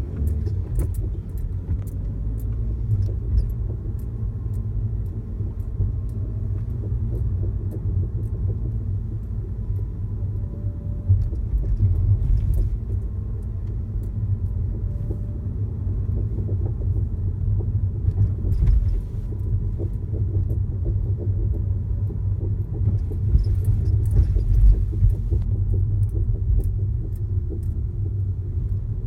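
Rattling and knocking in a Volkswagen Golf Mk5: many short, irregular clicks and knocks over the car's steady low rumble.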